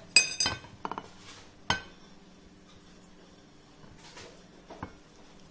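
Metal spoon clinking against a plate: a quick cluster of sharp, ringing clinks in the first two seconds, then one faint tap near the end.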